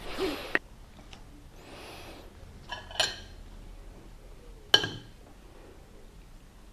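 Light clinks of tableware being handled: a couple of small strikes about three seconds in and a sharper one near five seconds, with a soft rustle before them.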